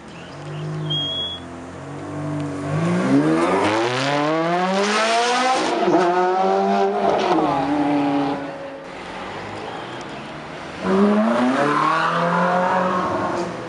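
Supercar engines accelerating hard. One engine note climbs steeply for about three seconds and then falls away, and about eleven seconds in another note climbs sharply again.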